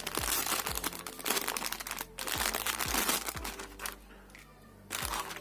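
Plastic packaging crinkling as an AV cable is pulled out of its plastic bag and handled, in three spells of rustling with short pauses between.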